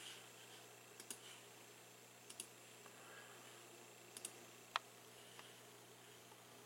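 Faint clicks from a computer being worked, a few quick double clicks and single clicks spaced a second or more apart over quiet room tone.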